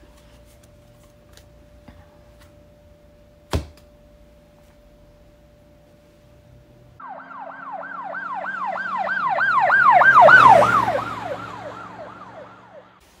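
An emergency-vehicle siren in fast yelp mode, its wail rising and falling about three times a second. It starts about halfway through, swells to a peak, then fades away with a slight drop in pitch. Before it there is a faint steady tone and a single sharp knock.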